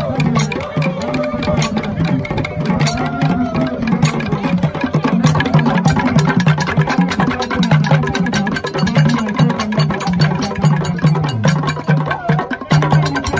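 Jola drumming for a Kumpo masked dance: hand drums and percussion beaten in a fast, dense rhythm, with a held higher note near the start and again about three seconds in.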